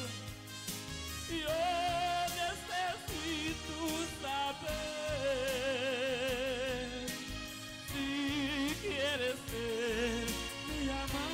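A man singing into a microphone over a karaoke backing track, holding long notes with a wide vibrato, with a steady bass line underneath.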